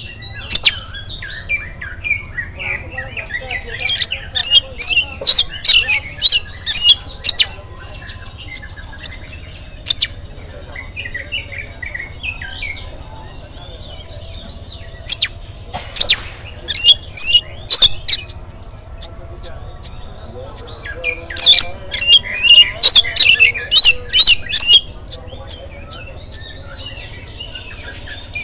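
Oriental magpie-robin singing: three bouts of loud, sharp, rapid notes with softer warbling between them, over a steady low hum.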